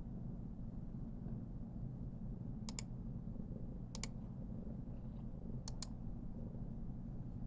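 Somali cat purring steadily while being stroked, a continuous low rumble. Three pairs of short, sharp clicks sound over it, a little under three, four and nearly six seconds in.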